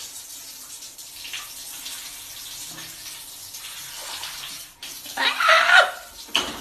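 Water running in a tiled shower, a steady hiss, then a little past five seconds a short, loud, high-pitched shriek.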